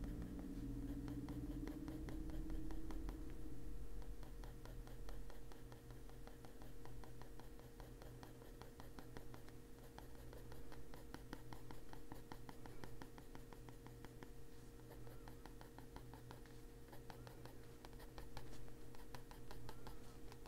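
Derwent Drawing colored pencil scratching on paper in quick, short back-and-forth strokes, shading an area darker, over a steady low hum.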